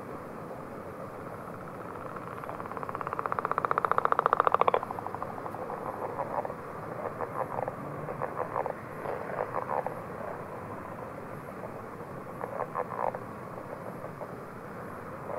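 Northern leopard frog calling: a long snore of rapid pulses that grows louder for about two seconds and cuts off abruptly, followed by several short pulsed grunts about a second apart.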